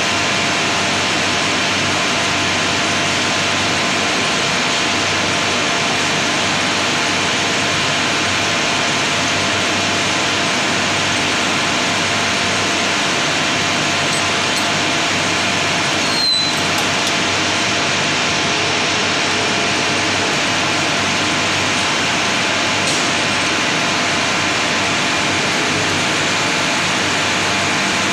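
Steady machinery din of a cotton spinning mill's running frames, a dense noise with a few faint steady hums through it, and one short click about halfway through.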